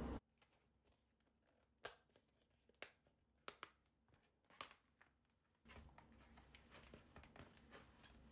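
Faint handling of a vinyl (PVC) adhesive remake sheet: a few separate sharp crinkles of stiff plastic film, then from about two-thirds of the way through a run of softer, closer-spaced crinkling and rustling as the large sheet is unrolled and spread out.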